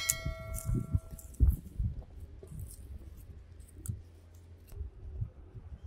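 A metal object struck once, ringing out and fading over about a second and a half, then scattered knocks and thumps of handling.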